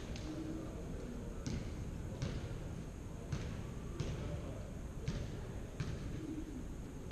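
A volleyball bounced on a hardwood gym floor, six sharp bounces about a second apart, echoing in a large hall.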